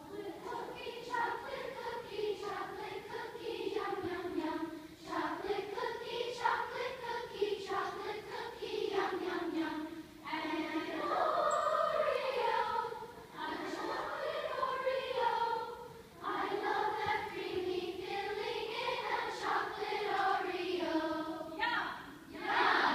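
Large children's choir singing vocal warm-up exercises (vocalization) together, a short rising-and-falling pattern repeated in several phrases with brief breaks between them.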